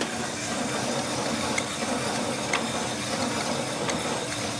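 Commercial drum coffee roaster running, a steady rushing noise as the batch of green coffee beans is charged from the hopper into the turning drum, with a few faint clicks.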